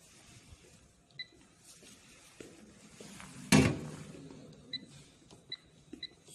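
Touch-screen control panel of a powder filling machine giving short electronic beeps as keys are tapped: one a little after a second in, then three more about a second apart near the end. Midway there is a single loud knock with a brief ring.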